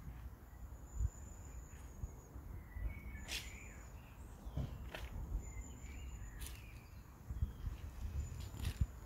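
Outdoor ambience: wind rumbling on the microphone, with short, high bird chirps and a few sharp clicks.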